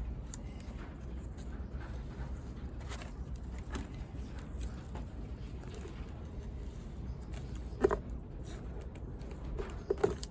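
Cloth insulating tape being wrapped around a hair dryer cord's soldered joint: faint rustling and small handling ticks, with two sharper knocks near the end, over a steady low hum.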